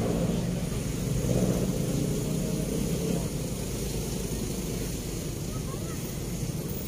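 Road traffic on a bridge: a passing vehicle's engine fades away over the first three seconds, leaving a steady low drone of traffic.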